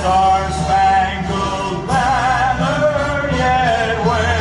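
A slow sung song: a voice holding long, slightly wavering notes over a steady low accompaniment.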